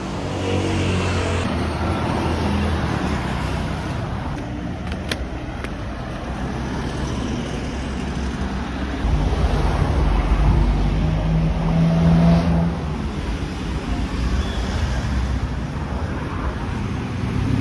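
Street traffic: cars, vans and motor scooters running past on the road. It grows louder about nine seconds in, as a vehicle's engine passes close for a few seconds.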